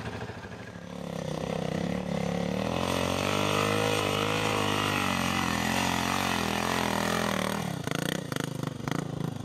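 Dirt bike engine running under load in soft sand, its pitch rising and falling with the throttle. Near the end it gives way to a short run of knocks and clatter.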